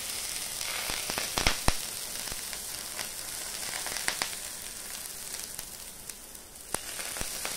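Bread frying in ghee in a hot pan, sizzling steadily, with a few sharp crackles and pops as milk is poured onto it a little at a time.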